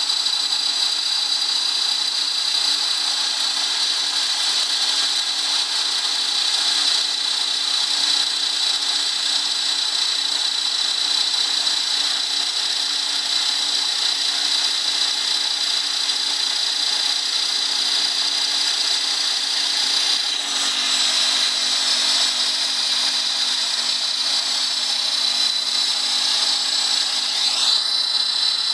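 Router motor serving as the spindle of a small CNC milling machine, running at speed with a steady high whine as its bit cuts a workpiece held in a vise. About two-thirds of the way through the cutting sound changes and a low hum joins in, and a short rising whine comes near the end.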